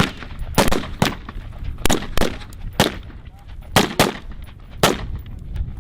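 Rifle fire on a firing line: about ten sharp single shots at uneven intervals, some in quick pairs, as several shooters engage their targets.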